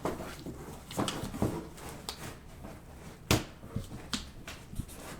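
Handling noise from trading-card packs and their box being picked through: scattered light clicks and taps, with one sharper click about three seconds in.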